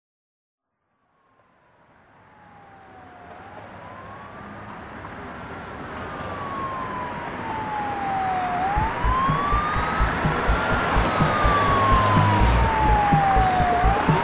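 A wailing siren fading in from silence: one tone slides slowly down, then swoops quickly back up, about every five seconds. About halfway through a regular thumping beat joins in, the start of a music track.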